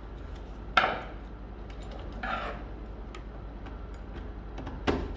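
Screwdriver and wire handling at the screw terminals of a plastic relay socket: two sharp clicks, one about a second in and one near the end, with a soft rustle between.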